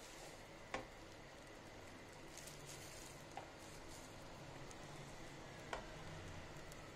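Instant ramen broth simmering faintly and steadily in a stainless steel saucepan, with three light clicks as slices of raw pork belly are added to the pot.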